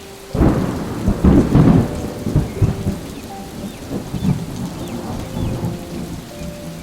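A clap of thunder breaks about half a second in and rolls off over the next few seconds, over steady rain.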